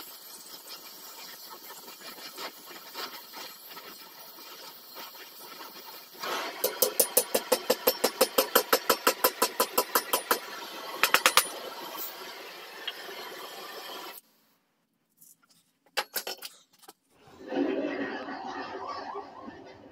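Gas torch hissing while heating forged steel, with a loud regular knocking at about five strokes a second for several seconds midway. The hiss cuts off suddenly about two-thirds of the way through, leaving a few clicks.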